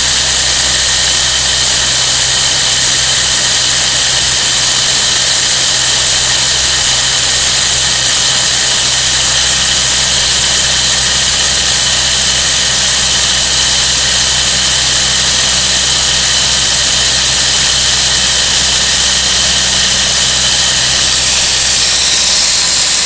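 Milling machine running steadily with a constant high whine, its carbide bit cutting crosshatch grooves into a steel vise-jaw blank. The sound cuts off abruptly at the end.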